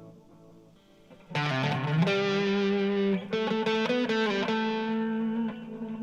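Electric guitar played through a delay pedal: a fading tail of echoed notes, then about a second in a new sustained lead phrase that opens with a note bent up in pitch, followed by held notes changing every second or so.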